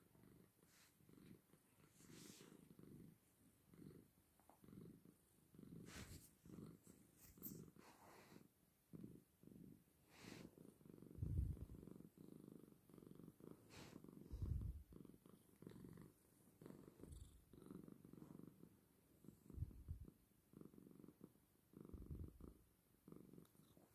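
Persian cat purring faintly, a low rumble that comes in repeating pulses.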